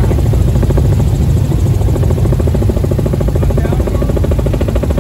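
Helicopter in flight, heard loud from inside the cabin: the rotor and engine run steadily with a rapid, even beat from the rotor.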